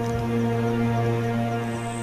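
Background music of long held notes over a steady low drone.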